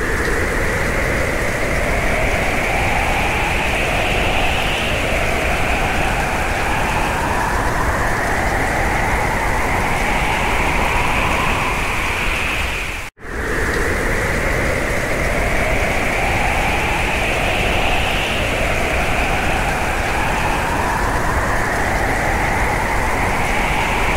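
Added soundtrack: a steady rush of noise with slowly rising sweeping tones that start over every few seconds. It cuts out for an instant about 13 seconds in and then starts again.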